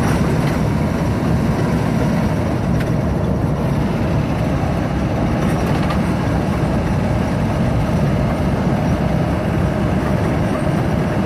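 Car driving along a road, heard from inside: a steady, even rumble of engine and tyres.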